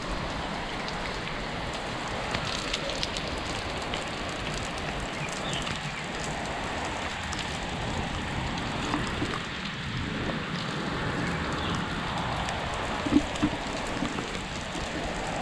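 Steady rain falling on shallow standing water and wet concrete. A few short knocks come near the end.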